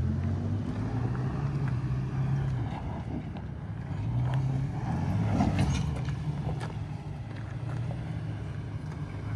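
A 4x4's engine running at low, steady throttle while crawling over rocks, swelling briefly about halfway through, with a few sharp knocks.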